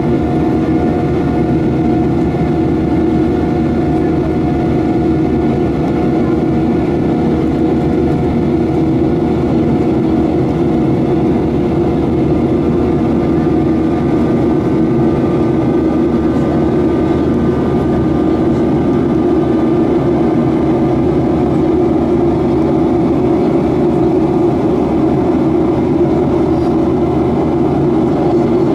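Steady cabin noise of a Boeing 737-800 in flight, heard from a window seat beside its CFM56-7B jet engine: an even, loud rushing noise with several steady humming tones over it.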